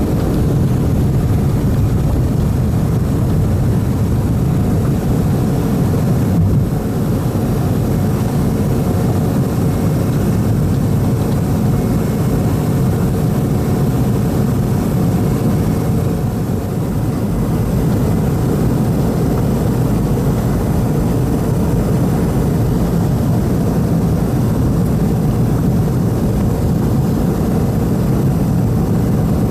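Boeing 717 jet engines at takeoff thrust, heard from inside the cabin as a steady, unbroken noise with a faint hum, as the airliner lifts off and climbs.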